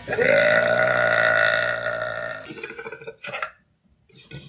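A woman's long, loud burp, bringing up excess gas. Its pitch rises at the start, then holds steady for about two seconds before it trails off. Two brief, fainter sounds follow it.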